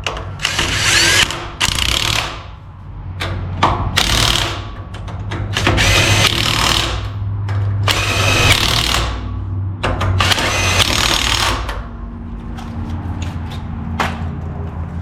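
Impact wrench running the lug nuts onto a trailer wheel in a series of short bursts, the last few seconds quieter.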